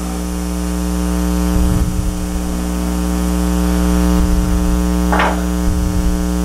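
Steady electrical hum with a stack of even overtones, unchanging throughout, and a short scraping noise about five seconds in.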